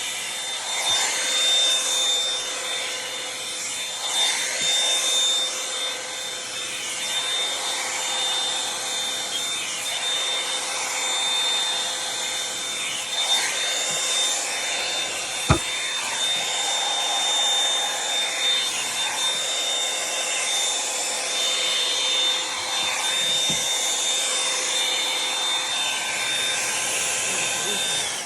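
Revlon One-Step hot-air brush running, steady blowing air with a constant high motor whine, its noise shifting as it is worked through hair. There is one sharp click about halfway, and it cuts off at the very end.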